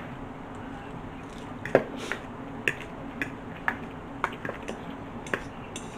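Forks clicking and scraping against salad bowls during eating: irregular sharp clicks, roughly two a second, starting a little under two seconds in.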